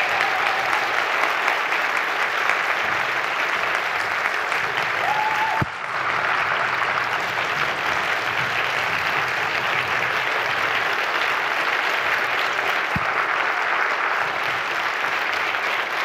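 Large audience applauding, a steady, sustained clapping with a brief dip about six seconds in.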